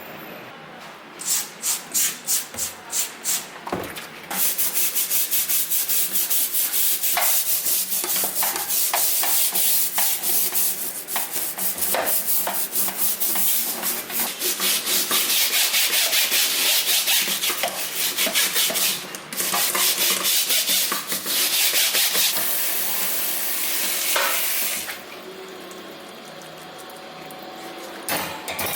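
Fast back-and-forth scrubbing on a hard kitchen surface during cleaning: a few separate strokes at first, then long runs of continuous scrubbing that stop near the end.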